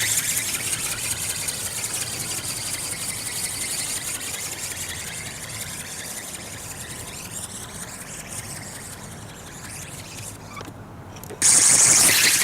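Small RC ornithopter's brushless motor and reduction gears whining high as the flapping-wing model flies past, the pitch wavering as it fades away. Near the end it is suddenly loud again.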